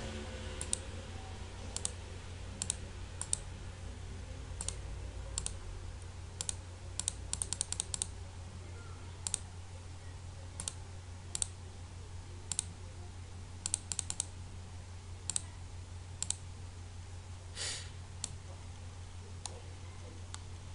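Sparse clicks from a computer mouse and keyboard while a ladder-logic program is edited: single clicks and short runs of several in quick succession, over a steady low electrical hum.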